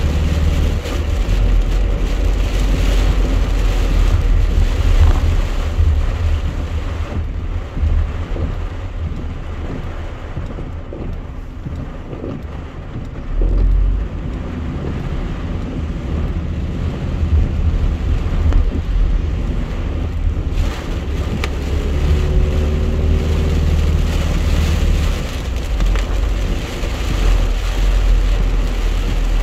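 Heavy rain on a car's windshield and roof, heard from inside the cabin while driving, with wet-road tyre noise and a low engine rumble. The hiss thins out for a stretch in the middle as the car slows in traffic, then builds again.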